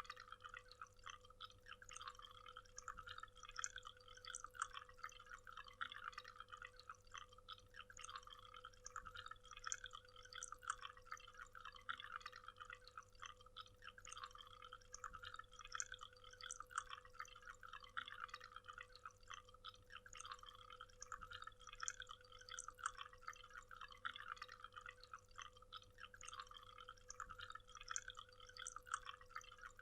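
A waterfall splashing and trickling, faint and steady, with a dense patter of small splashes.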